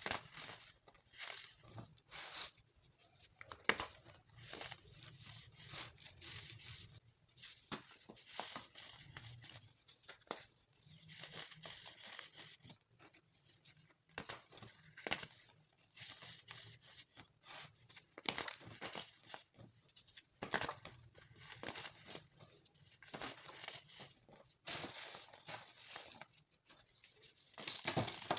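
Dyed baking soda being crushed, crumbling with dry, crackly crunches that come irregularly about once a second, with a louder crunch near the end.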